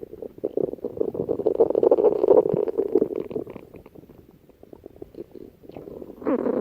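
Human stomach growling: long gurgling rumbles, loudest in the first half, dying down midway, then swelling into a fresh gurgle near the end.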